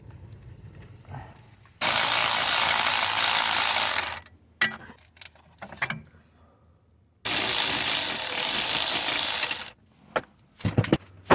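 Power ratchet running in two bursts of about two and a half seconds each, spinning off the 10mm nuts that hold a dash bracket, with a few short knocks in between.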